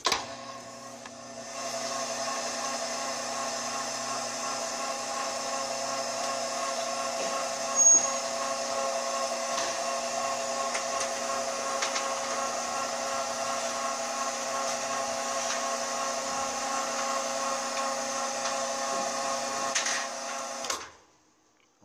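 Electric roller-shutter motor running and driving the shutter down through its chain and sprocket: a steady hum with a whine over it. It starts about a second and a half in and cuts off sharply just before the end, with one sharp click about eight seconds in.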